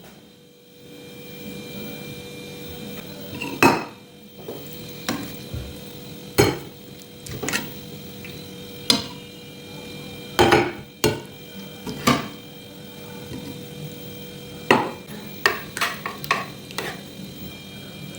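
Kitchen utensils clinking and knocking against pots and dishes: about fifteen sharp, irregularly spaced strikes, as when stirring or handling cookware.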